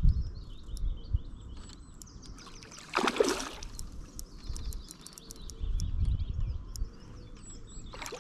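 Small birds singing and chirping, with a low rumble that comes and goes and a brief rush of noise about three seconds in.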